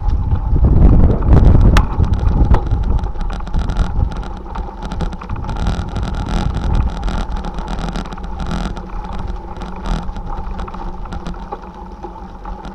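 Wind buffeting the microphone, heaviest in the first two or three seconds, over the rumble and rattle of a bicycle rolling along a rough towpath, with a faint steady hum underneath.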